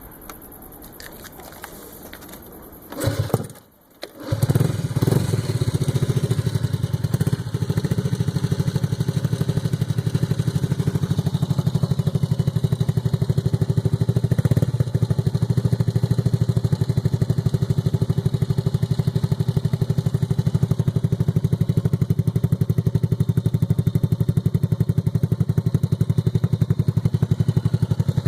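Honda Dream C100 single-cylinder four-stroke engine with a Roncar aluminium aftermarket exhaust: it starts about three seconds in, then runs steadily with a deep exhaust note.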